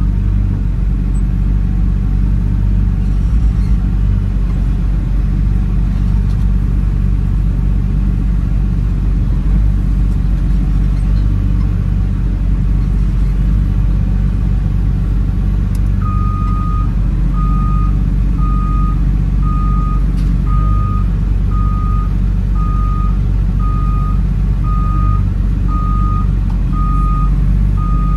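Cat 930H wheel loader's diesel engine running steadily, heard from inside the cab. About halfway through, a reversing alarm starts beeping, a little over once a second.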